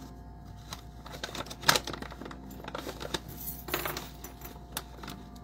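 Crinkling and small clicks of a hand and scoop working in a plastic pouch of seeds, with a sharper clack about a second and a half in and another cluster near four seconds.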